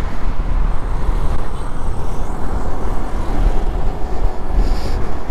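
WMoto RT1 scooter ridden in traffic: steady wind buffeting on the microphone over the scooter's engine and road noise.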